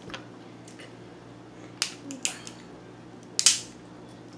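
A few sharp cracks and clicks of crab shell being broken open by hand: one just under two seconds in, two close together a little later, and the loudest about three and a half seconds in.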